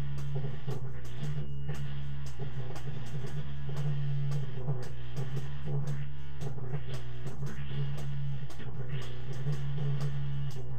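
Instrumental band music: electric guitar playing over a sustained low note, with a steady ticking beat.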